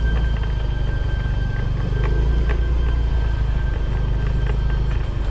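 Motorcycle engine running steadily while riding on a forest track, with scattered short clicks and knocks.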